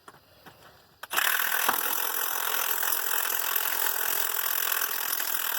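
Milwaukee Fuel half-inch cordless impact wrench hammering on a tractor rear wheel's nut to loosen it. It is one continuous burst that starts abruptly about a second in and runs for nearly five seconds.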